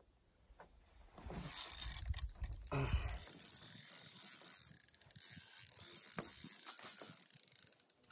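Fishing reel being cranked with a fine, fast clicking whir, with a fish on the line being reeled in. It starts about a second and a half in and runs almost to the end, over a low rumble of handling in the first few seconds.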